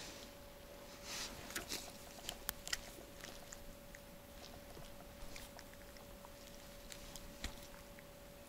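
Faint close handling noise of hands unhooking a small fish from a fishing hook: a cluster of sharp clicks and rustles about one to three seconds in, then scattered lighter clicks, over a faint steady high hum.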